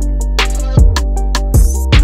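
Background music with a steady drum beat and deep sustained bass notes.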